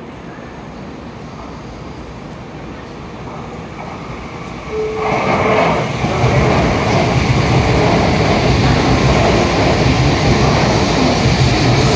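Tokaido Shinkansen N700S train running past close by. A rushing sound builds slowly, then jumps loud about five seconds in as the nose goes by, and stays as a steady rush of wheels and air with a low hum while the cars pass.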